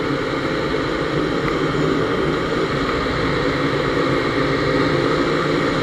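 Honda C70's small four-stroke single-cylinder engine running steadily at cruising speed under way, heard from the rider's seat along with road and wind noise.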